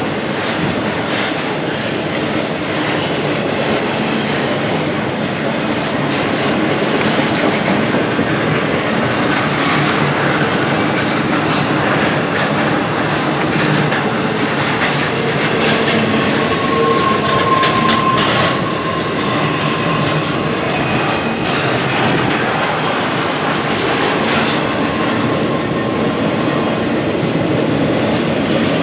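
Norfolk Southern freight train rolling past, a steady rumble and clatter of cars on the rails, with a brief high wheel squeal a little past the middle.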